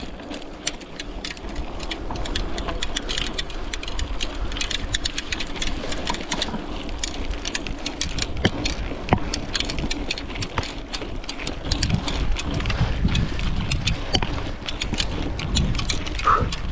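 Bicycle being ridden up a short climb on a rough track: a dense run of small irregular clicks and rattles over a low wind rumble on the microphone, the rumble heavier over the last few seconds.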